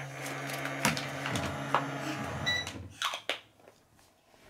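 Toy microwave playset running: a steady electronic hum with light plastic clicks of handling, stopping a little over two seconds in, followed by a short high beep and a few more plastic clicks.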